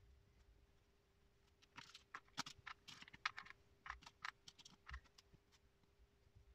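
Quiet light clicks and short scratching strokes, a marker writing on a whiteboard and small metal sockets and washers being set down on it, clustered through the middle few seconds, over a faint steady hum.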